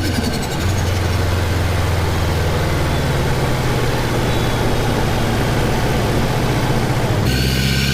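Car engine idling loudly and steadily with a rough, lumpy note. About seven seconds in it cuts abruptly to a different engine idling.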